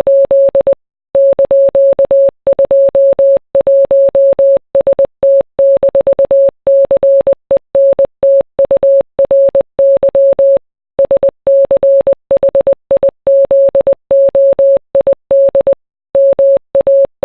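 Morse code: a single mid-pitched beep tone keyed on and off in quick dots and dashes, with brief pauses between words, spelling out song lyrics.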